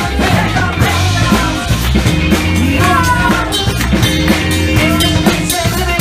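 Live rock band playing loud, with drum kit and bass keeping a steady beat and a voice singing over it.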